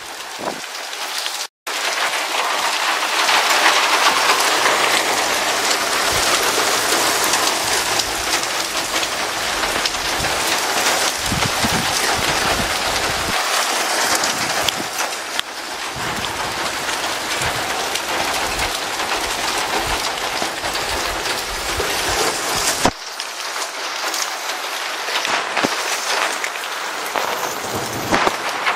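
Heavy rain falling steadily during a thunderstorm, a dense even hiss that cuts out for an instant about a second and a half in.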